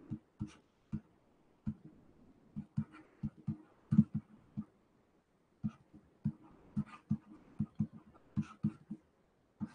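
Stylus tapping and scraping on a drawing tablet while writing by hand: a string of short, irregular taps, with a brief pause about halfway.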